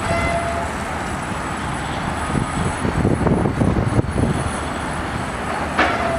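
Steady low rumble and clatter of a Link-Belt LS-518 crawler crane working a clamshell demolition bucket against a concrete office building. Near the end comes a short, louder burst with a squeal.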